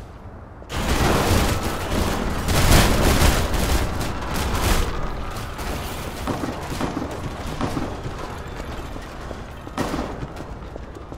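A sudden loud burst of crackling, distorted noise starts about a second in. It is heaviest for the next few seconds, then tapers off, with a brief second burst near the end.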